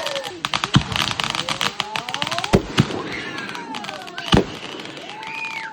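Consumer fireworks going off: rapid crackling and popping with several deep booms, and gliding whistles overhead.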